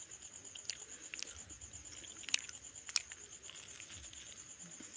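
Close-up eating sounds: a few sharp, crisp clicks and crunches at irregular intervals from chewing a crispy fried bok phool fritter.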